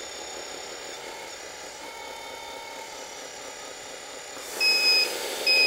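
Sound module of a 1/14 metal RC hydraulic wheel loader playing a steady simulated engine hum with thin whining tones as the machine is worked. Near the end come two short, loud electronic beeps about half a second apart, with a rising whine under them.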